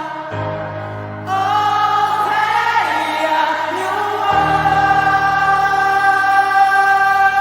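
Live concert performance of a pop ballad: sustained choir-like voices over long held chords, growing fuller and louder about a second in, with the bass chord changing about four seconds in.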